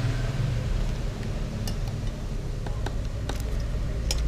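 A metal spoon clicking against a plate as rice is scooped up, a few sharp clicks in the second half, over a steady low hum.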